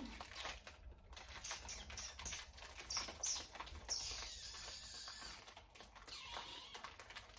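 Plastic snack wrapper crinkling and crackling in small irregular clicks as it is handled and opened, with a brighter rustle about four seconds in.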